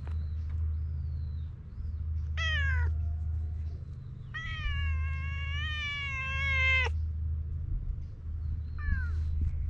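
Stray cat meowing three times: a short falling meow about two seconds in, then a long drawn-out meow of about two and a half seconds, and another short falling meow near the end. A steady low rumble runs underneath.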